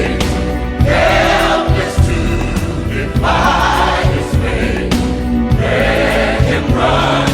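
Music with a choir singing long held phrases, each about two seconds long, over a steady low accompaniment.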